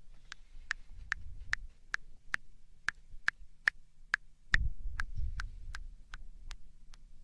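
ASMR mouth sounds: crisp tongue clicks close to the microphone, evenly paced at about two to three a second. A low rumble comes in about a second in and again just past the middle.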